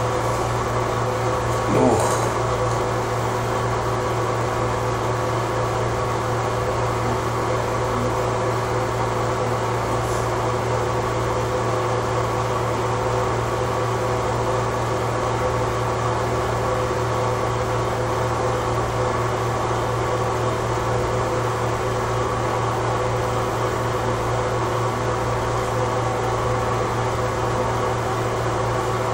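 Steady mechanical hum of a running appliance: a low drone with a few fixed higher tones, unchanging throughout, with a brief small sound about two seconds in.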